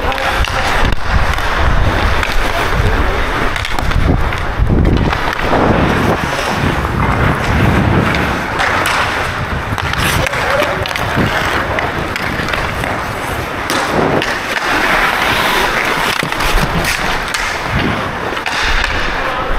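Ice hockey skate blades carving and scraping on the ice, swelling and easing with each stride and turn. Occasional sharp knocks of sticks on the puck and ice.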